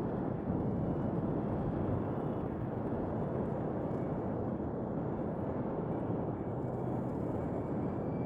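Designed sci-fi alien-world ambience: a steady, dense low rumble with a faint high tone held above it.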